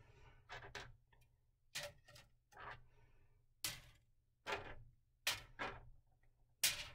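Small plastic toy bears being set down one by one into floating aluminium-foil boats: a string of light, irregularly spaced taps, about a dozen, each with a short rustle of foil.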